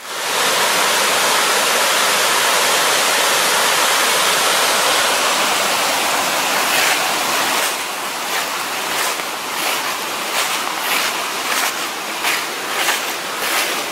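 Steady, loud rush of flowing water. It eases slightly after about seven seconds, and from then on the walker's footsteps sound at an even pace, about two a second.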